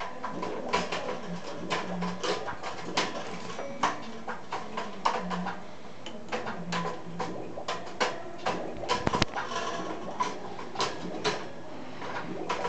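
Irregular clicks and taps of a budgerigar's beak and feet on a wire cage, with a quick flurry of taps about nine seconds in. Soft budgie chatter runs underneath.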